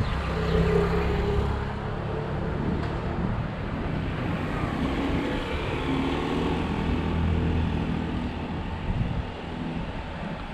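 Road traffic: motor vehicles driving past, their engines rising and fading over a steady wash of road noise, easing off near the end.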